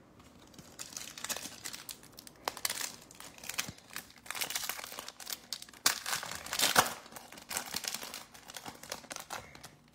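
Plastic foil wrapper of a football trading card pack being torn open and crinkled by hand, a busy run of rustles and crinkles that is loudest about six to seven seconds in.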